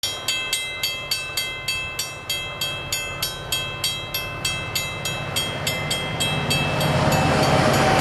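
Level crossing warning bell ringing with evenly spaced strokes, about three and a half a second. From about six and a half seconds in, the rumble of an approaching diesel freight train rises and drowns the bell out.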